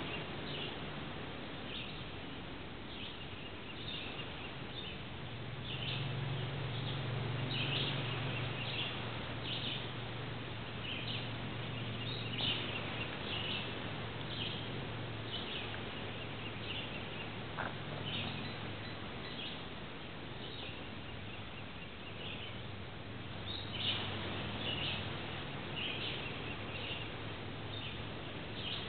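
Birds chirping again and again in short high calls, over a low steady hum.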